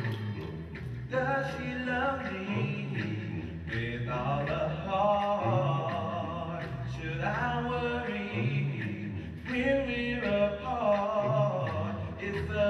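A male vocal group sings in close harmony into stage microphones, with a low bass part repeating under the higher voices.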